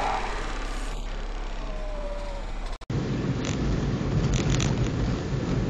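Car driving noise picked up by a dashcam: steady road and engine noise that cuts off abruptly about three seconds in. A different car's heavier, low engine and road rumble follows.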